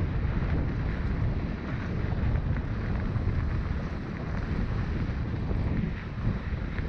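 Wind buffeting the microphone of a mountain biker riding a dirt trail, a steady low rush with tyre noise and light scattered clicks and rattles from the bike.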